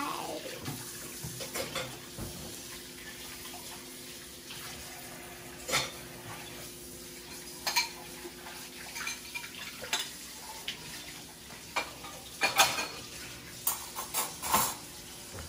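Dishes, pots and cutlery clinking and clattering at intervals, most often in the last few seconds, over a tap running steadily.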